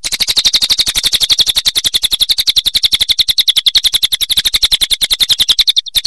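Crested jay (cililin) giving a loud, fast, dry rattling call, a steady train of about a dozen pulses a second. It starts abruptly, breaks off just before the end, then resumes briefly.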